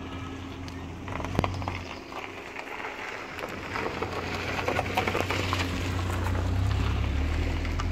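Opel 1.7 CDTI four-cylinder turbodiesel (A17DTJ/A17DTR) idling steadily, heard from the open engine bay, with scattered clicks and rustles over it.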